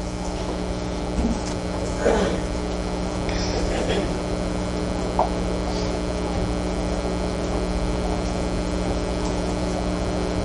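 Steady electrical mains hum from the microphone and recording chain during a pause in speech. A few faint, brief sounds come in the first four seconds.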